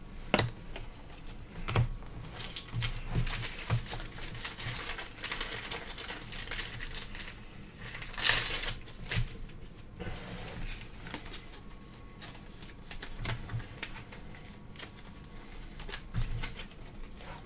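Prizm baseball cards being handled and flipped through by hand: a run of quick, irregular light clicks and rustles, with a louder rustle about eight seconds in.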